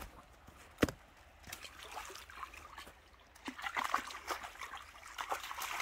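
Dog chewing on a broken wooden stick: a sharp crack about a second in, then irregular wet crunching and crackling.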